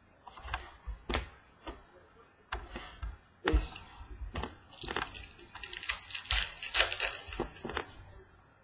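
Glossy trading cards being handled on a wooden table: a string of sharp clicks and taps, then dense rustling and sliding from about five seconds in as cards are flipped through and set down.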